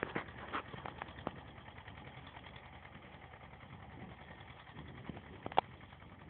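Distant Vladimirets T-25 tractor's two-cylinder air-cooled diesel running steadily, heard faintly across the field, with a few short sharp clicks over it, the loudest about five and a half seconds in.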